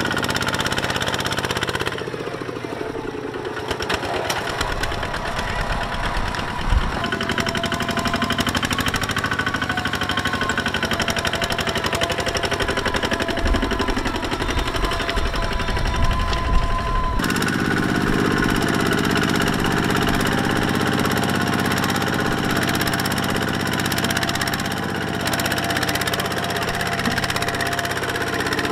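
Two-wheel walking tractor's single-cylinder diesel engine running under load, pulling a loaded trailer through soft dirt, with a rapid, steady chugging. The sound changes abruptly twice.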